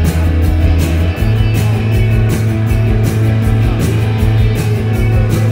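Live rock band playing loudly: electric guitar, bass guitar and drums with regular cymbal hits. About a second in, the bass moves up to a higher note.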